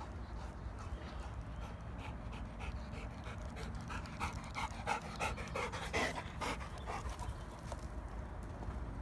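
Labrador retriever panting rapidly, breathing hard from running up and down slopes; the panting is loudest in the middle.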